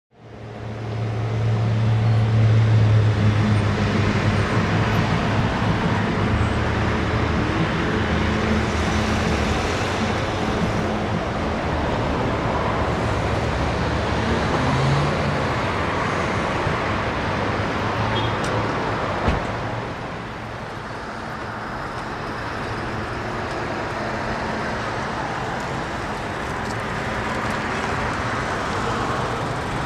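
Road traffic: passing cars giving a steady wash of engine and tyre noise. A low steady hum fades after the first several seconds, and a single sharp knock comes about nineteen seconds in.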